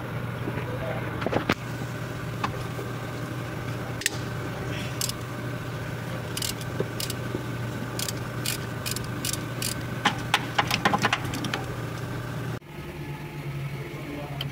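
Sharp clicks and taps of hand tools and plastic parts being worked in a car's engine bay: a run of evenly spaced clicks in the middle, then a quick cluster. A steady low hum runs underneath and changes abruptly near the end.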